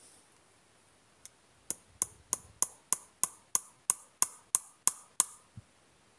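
Steel hammer driving a nail into a wooden crossbar: about a dozen quick, evenly spaced strikes, roughly three a second, each with a short metallic ring, then one dull knock near the end.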